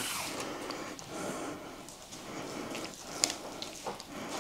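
Soft, irregular scraping and smearing of a jam filling being spread and levelled over rolled-out dough, with one sharp click a little over three seconds in.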